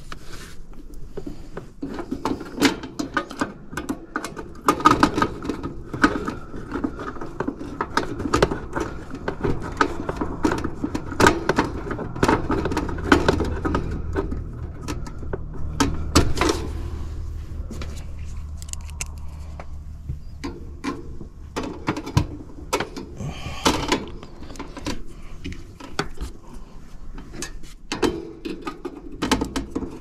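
Hands fitting a new contactor back into an HVAC control panel and pushing wire terminals onto it: irregular clicks, taps and rustling of wires and metal, with a low hum through the middle.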